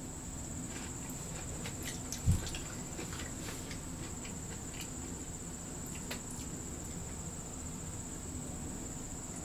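A steady high-pitched whine, with faint scattered ticks and one dull thump about two seconds in.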